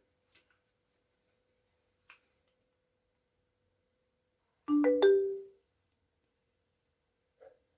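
Near silence with a few faint ticks, broken about five seconds in by a short chime of three or four quick, bell-like mallet notes that ring out for under a second.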